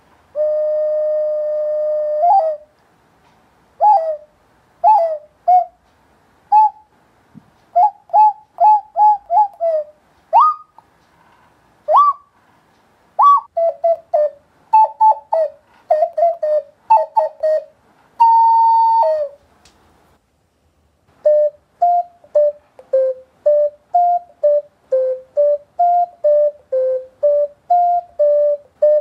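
Whistled bird-call notes imitating birdsong. A long held note opens it, then come short chirps, a few quick upward-sliding notes and a second long, higher note. A rapid run of alternating two-pitch chirps fills the last third.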